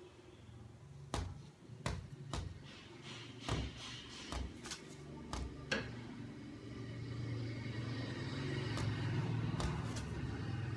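Rooster striking at its own reflection in a mirror: a string of sharp, irregular taps of beak on glass, then a longer stretch of scuffling noise that grows louder.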